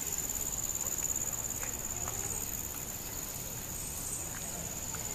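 Steady high-pitched drone of insects in the surrounding vegetation, running unbroken, with a few faint taps underneath.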